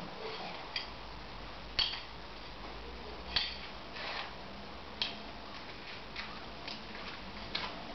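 Steel shuriken clicking and knocking as they are retrieved from a wooden post target: a string of sharp, irregular clicks, roughly one a second.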